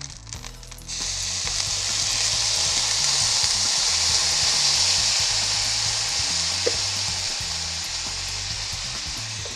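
Freshly squeezed lemon juice hitting a hot frying pan and sizzling loudly. The sizzle starts suddenly about a second in, swells, then slowly dies down.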